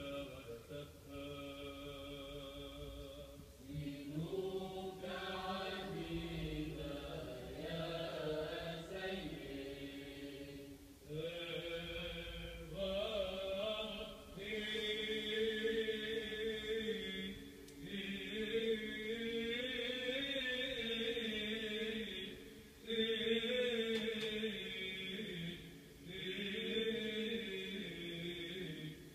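Sung chant: voices holding a slow melodic line in long phrases, with brief pauses between them.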